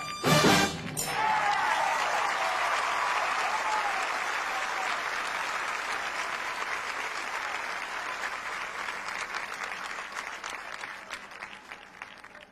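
A brief loud blast from the drum and bugle corps right at the start, then a stadium crowd applauding and cheering with whistles. The applause fades gradually.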